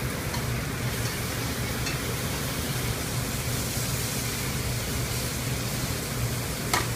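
Steady commercial-kitchen background noise: an even hiss with a low hum underneath.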